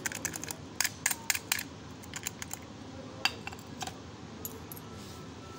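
Sharp metallic clicks and clinks from a round steel disc padlock and its keys being handled, a quick run of them in the first second and a half, then a few scattered ones as the padlock is set down on a concrete floor.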